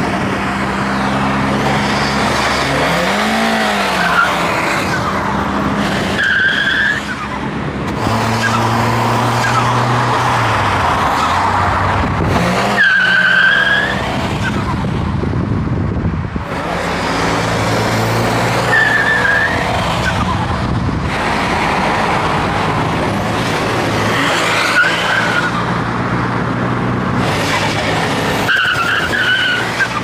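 Turbocharged Volkswagen Golf GTI engine revved hard about five times, each throttle lift followed by a whistling, fluttering chirp from the turbo. This is compressor surge (turbo flutter): with a sport intake filter and the small stock blow-off valve unable to vent all the boost, the air rushes back out through the turbo.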